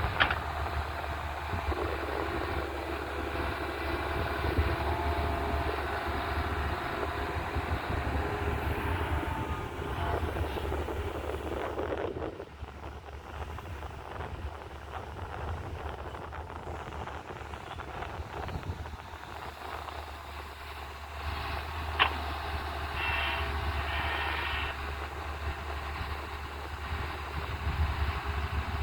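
Tata Hitachi excavator's diesel engine running with a steady low hum, louder and busier for the first twelve seconds or so, then easing down. There is a single sharp click about twenty-two seconds in.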